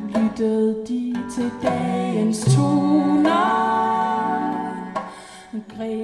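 Live acoustic band music with cello and hand drums, and a long held melodic note with vibrato from about three seconds in. The music drops quieter briefly near the end.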